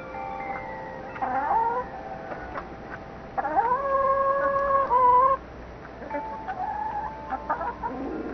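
Backyard chickens calling: a rooster gives one loud, long held crow of about two seconds near the middle, ending in a waver, with shorter rising calls before and after it.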